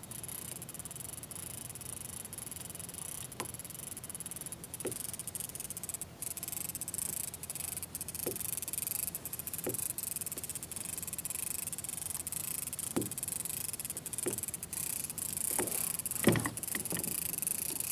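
Fishing reel being cranked slowly against a hooked fish, a steady fine ticking hiss from the reel's gears and line. A few soft knocks come at irregular intervals, the clearest near the end.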